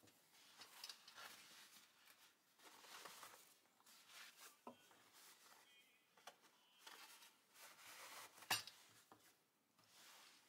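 Faint rustling of a cloth brush roll and its cord as the tie is unwound and the roll opened, with one sharp click about eight seconds in.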